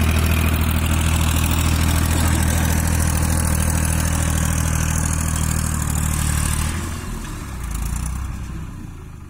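New Holland tractor's diesel engine running steadily under load as it pulls a rotary implement through the soil, fading from about seven seconds in as the tractor moves away.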